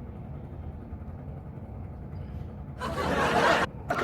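A low steady hum, then about three seconds in a short burst of a recorded laughter sound effect plays back and cuts off after less than a second.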